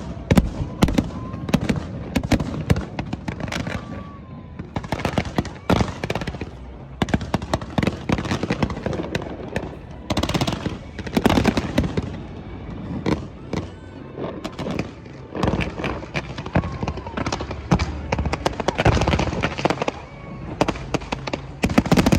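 Fireworks display going off: many sharp bangs and rapid crackling volleys, some packed close together, with the voices of an onlooking crowd underneath.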